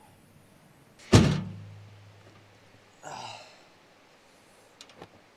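Pickup truck tailgate dropped open with a loud metal thunk about a second in, ringing low for a moment after. A short sigh-like breath follows, and a couple of light knocks come near the end.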